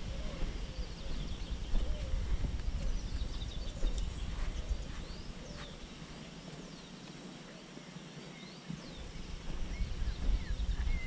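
Pasture ambience of small birds chirping throughout, under a low rumble on the microphone that eases off for a few seconds past the middle, with a few soft knocks.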